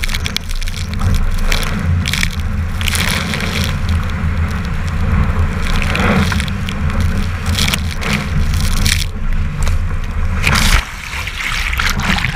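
Strong wind buffeting an action camera's microphone as a Finn dinghy sails fast, with spray and the bow wave rushing past the hull in repeated hissing surges every second or two.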